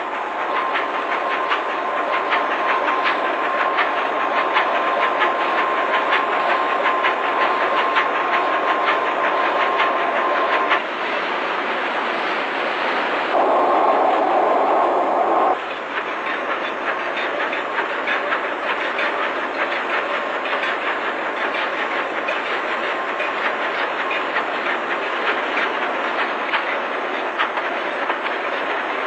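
Large two-stroke ship's diesel main engine running up toward full speed: a dense, rapid clatter with a steady whine that stops about eleven seconds in. About halfway through, a louder rushing noise comes in for about two seconds.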